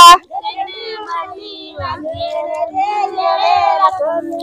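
Women's voices singing a Tamil kummi folk song together without instruments, several overlapping voices with wavering pitch. It is a quieter passage between a loud voice's held notes.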